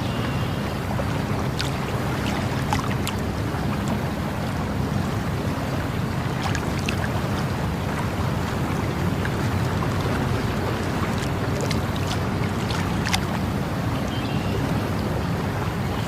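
Flowing water rushing steadily, with a few sharp little splashes or clicks scattered through it.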